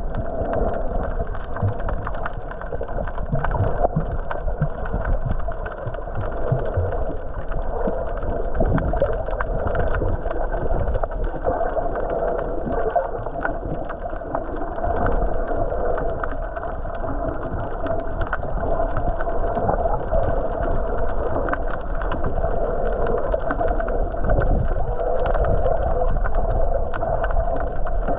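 Muffled underwater sound from a camera held below the surface while snorkelling: a steady low rumble and hum of water with constant faint crackling.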